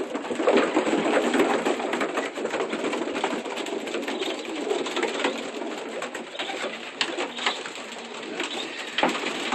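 Many racing pigeons cooing together in a loft, a dense continuous murmur of overlapping coos, with a few sharp clicks about seven and nine seconds in.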